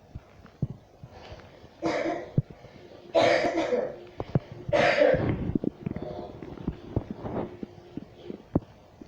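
A woman coughing: three loud, harsh coughing fits about two, three and five seconds in, then a few fainter coughs, with scattered sharp clicks and knocks around them.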